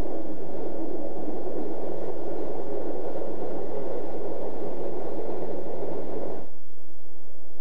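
Steady rushing noise of an electric train running along the line. It cuts off abruptly about six and a half seconds in, leaving only a faint low rumble.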